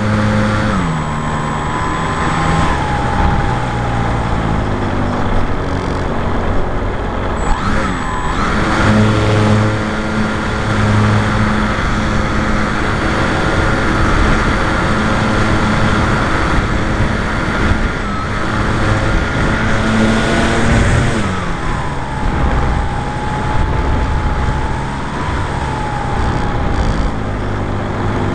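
Brushless electric motor and propeller of a radio-controlled Piper J-3 Cub model, heard from on board under the wing, with wind rushing over the microphone. The steady whine drops in pitch as the throttle is eased about a second in, rises again some eight seconds in, and drops again about two-thirds of the way through.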